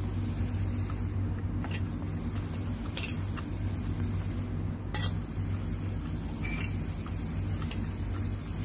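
Metal fork clinking against a plate several times while noodles are picked up, over a steady low hum.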